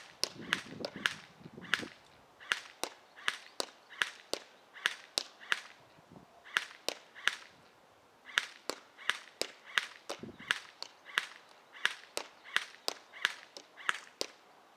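Airsoft GI G4-A5 Dune Knight electric airsoft rifle firing a long string of sharp shots, about two to three a second with a few short pauses. The shots come slowly because the gun's battery is almost dead.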